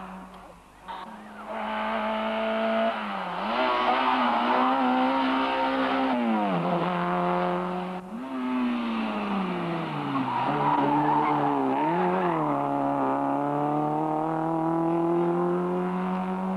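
Rally car engine revving hard, its pitch dropping and climbing again several times as it changes gear and comes off and back on the throttle for corners. It swells in about a second in and stays loud.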